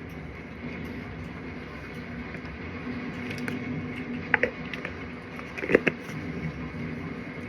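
A steady hum runs throughout, with a few sharp clicks: one about four seconds in and a close pair a little before six seconds.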